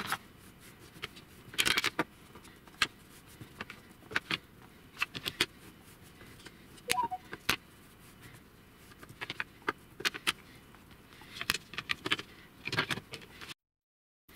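Irregular clicks and clattering knocks of laminated plywood strips being picked up, handled and laid down on the bench, in scattered clusters, with light taps of a brush at their edges. The sound cuts off suddenly about a second before the end.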